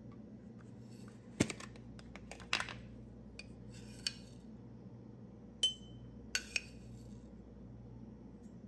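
Kitchenware being handled: dishes and utensils knocking and clinking in about seven separate sharp knocks, one about five and a half seconds in ringing briefly like glass or china, over a faint steady low hum.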